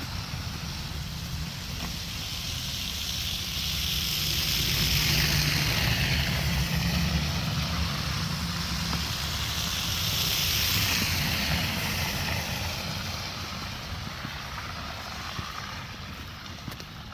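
Motor vehicles passing on a snowy street: tyre hiss swells up and fades away twice, about five and ten seconds in, over a steady low rumble of traffic and wind.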